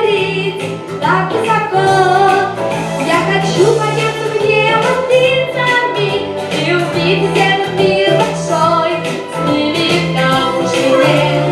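A song: a female voice singing over instrumental accompaniment with a steady bass line.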